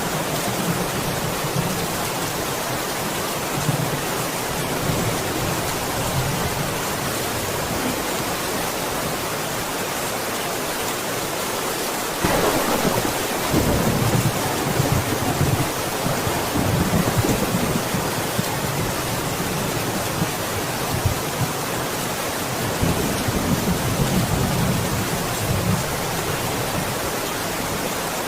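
Steady rain falling, with low rolling rumbles of thunder: one that starts suddenly a little under halfway through and lasts several seconds, and another weaker one later.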